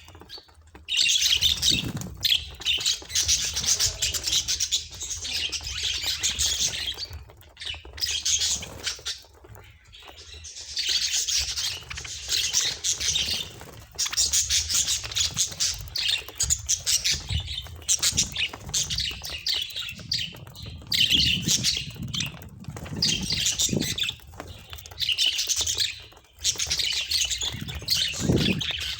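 Budgerigars chattering and warbling in quick chirpy spells of a second or few, broken by short pauses.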